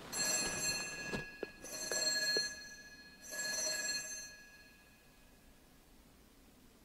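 Altar bell rung three times, about a second and a half apart, each ring a clear high ringing that fades within about a second: the bell that marks the elevation of the host at the consecration.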